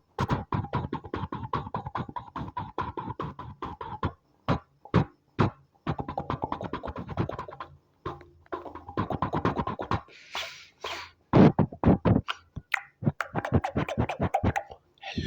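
Beatboxing: rapid, irregular mouth clicks and pops over a held hummed tone, with short pauses and a hissing scratch-like sound about ten seconds in.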